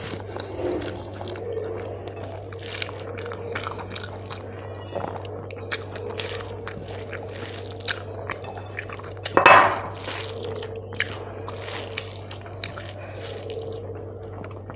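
Close-miked wet eating sounds: rice and fish curry squelching as they are mixed by hand, with chewing and mouth clicks, over a steady low hum. One louder wet sound comes about nine and a half seconds in.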